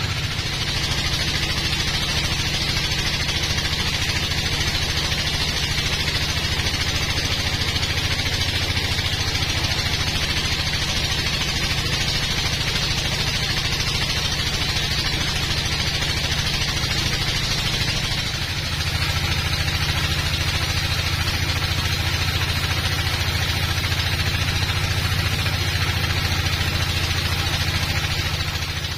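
Bandsaw mill cutting through a teak log: a steady low motor hum under the continuous noise of the band blade in the wood, dipping briefly about two-thirds of the way through.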